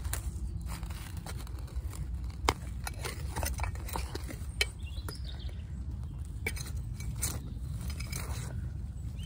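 Hands rummaging through loose soil, pulling out ground elder roots: crumbling earth with a scatter of small crackles and snaps as the roots break, two sharper clicks standing out in the middle.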